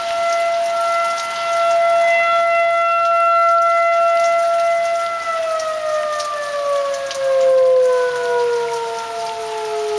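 Outdoor civil-defense warning siren sounding the all-clear after a tornado warning: a steady tone for about five seconds, then winding down in a slow falling glide. Rain patters underneath.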